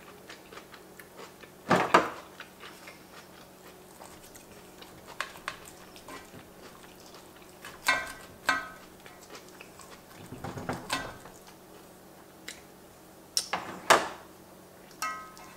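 Close-up chewing and mouth sounds of eating, broken by a few sharp scrapes and clicks of a wooden fork and knife cutting into food in an enamelled pan.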